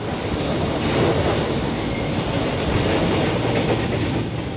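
Running noise inside a moving KRL electric commuter train carriage: a steady rumble and rush of wheels on the rails.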